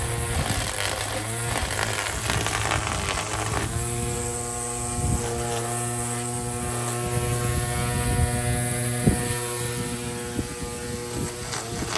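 A motor running steadily with a hum. Its tone grows stronger and steadier about four seconds in, then fades near the end.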